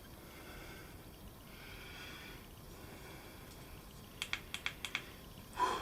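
A person breathing heavily after a climb, slow breaths about two seconds apart, then a quick run of about five sharp clicks about four seconds in and a short louder sniff near the end.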